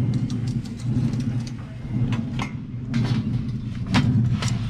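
A steady low mechanical hum with a scattered run of sharp clicks and knocks, several of them louder, about two and a half, three and four seconds in.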